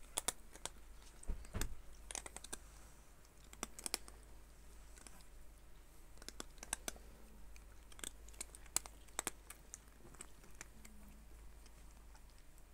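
Several cats eating dry kibble from a plastic bowl: irregular small crunches and clicks of chewing and of kibble knocking in the bowl.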